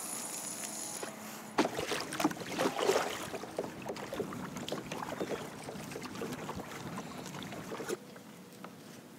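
Kayak paddling: water splashing and dripping from the paddle blades, with scattered clicks and knocks, loudest a couple of seconds in and easing off near the end.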